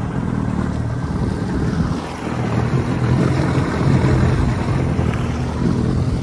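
Old two-stroke outboard motor running steadily, pushing the small skiff along, with wind noise on the microphone.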